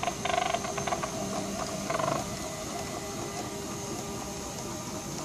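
CRRT machine loading its tubing set: the roller pumps and motors turn, giving a few rattling clicks in the first two seconds, then a steady mechanical hum.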